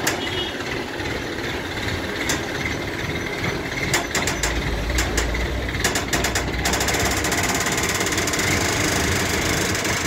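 A heavy engine runs steadily with a knocking rattle while a large steel-framed washing machine is hoisted on a sling and chain. A run of sharp metallic clicks comes between about four and six and a half seconds in, and the engine sounds rattlier after that.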